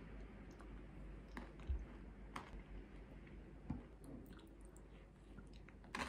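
Eating sounds: a wooden spoon scooping a thick smoothie bowl out of a glass bowl, giving a few scattered soft clicks and knocks, with faint chewing.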